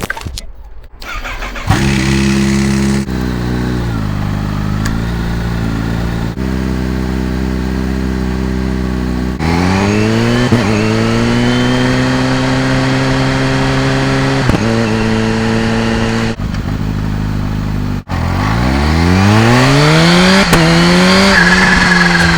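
Kawasaki Z H2's supercharged inline-four starting cold about two seconds in and settling into a loud, steady fast idle. Later, twice, the engine climbs in rising runs of revs broken by quick dips like gear changes, with a faint rising supercharger whine above it.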